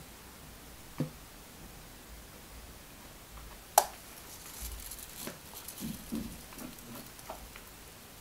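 Thick sponge-cake batter pouring and landing in a parchment-lined round cake pan, a run of soft, irregular wet plops through the second half. A couple of light knocks come early, and a sharp click just before the pouring starts is the loudest sound.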